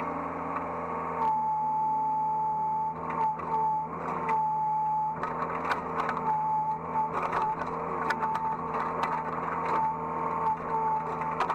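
Hydraulic excavator running, heard from the operator's seat: a steady engine hum under a high whine that starts and stops in stretches of a second or more, with scattered knocks and clatters through the second half.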